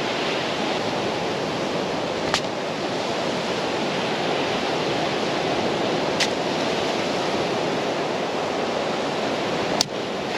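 Ocean surf washing steadily onto a sandy beach, an even hiss with three brief clicks spread through it.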